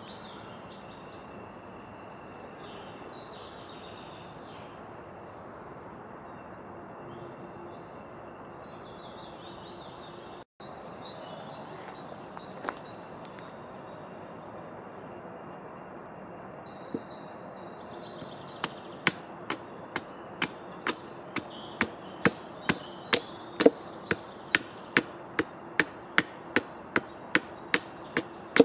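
Birds chirping in woodland. Then, from about two-thirds of the way in, a steady run of sharp knocks, about two a second, as wood is struck with a piece of wood.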